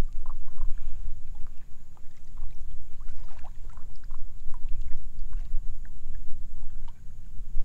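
A stand-up paddleboard/kayak being paddled: small water splashes and drips from the paddle strokes come scattered throughout. Under them runs a loud low rumble of strong wind buffeting the microphone.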